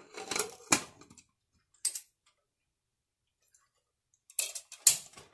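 Aluminium pressure cooker lid being fitted and closed: metal-on-metal clicks and short scrapes in a cluster during the first second, the loudest a sharp click, and another cluster about four and a half seconds in as the lid and handles are set.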